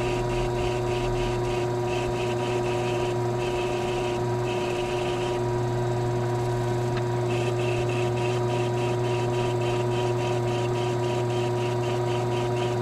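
Benchtop mini lathe running with a steady motor hum while a hand-held cue-tip shaper rasps against the spinning leather cue tip in quick pulses, about four a second. The rasping stops for about two seconds mid-way, then resumes.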